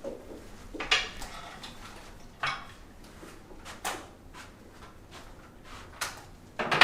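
Several sharp clicks and knocks, spaced one to three seconds apart, with the loudest at the very end.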